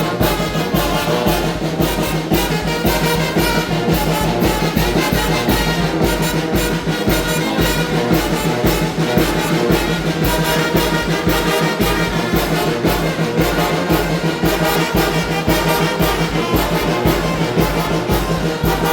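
Mexican banda, a brass and wind band with trumpets, trombones and a low bass beat, playing a huapango at a steady, lively pulse.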